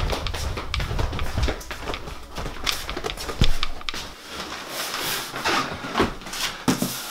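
Handling noises: irregular light clicks and knocks with rustling, one louder knock about halfway through.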